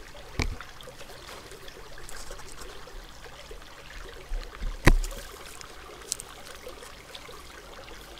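Steady trickle of flowing river water, broken by a few sharp knocks and bumps against the trail camera as a young raccoon dog handles it; the loudest knock comes about five seconds in.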